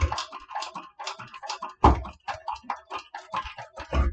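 Industrial walking-foot sewing machine stitching slowly through a thick leather tab: irregular clicks and knocks, with a heavier thump about two seconds in and another near the end.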